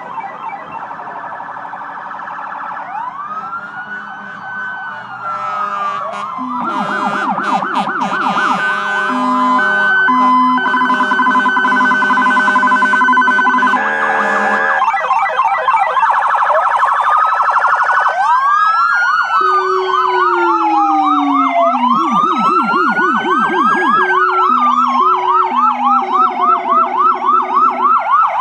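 Several emergency-vehicle sirens from a police SUV and a fire engine sounding at once, overlapping: slow rising-and-falling wails mixed with fast yelps. They grow louder over the first dozen seconds as the vehicles approach, and fast yelping dominates near the end.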